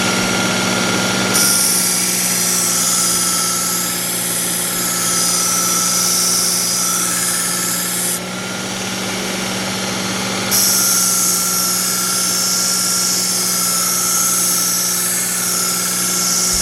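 Electric belt knife sharpener running steadily, with a steel knife blade drawn along the abrasive belt in two long passes: a hissing grind from about a second in to about eight seconds, then again from about ten and a half seconds to the end. The blade's existing edge is being honed at a 20-degree angle.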